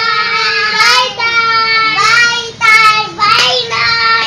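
A young girl's voice singing long, held high notes, with short breaks between them.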